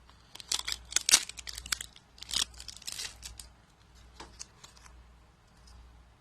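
Packaging being handled and opened: a run of sharp crinkling and crackling, loudest about a second in, tapering to a few scattered ticks.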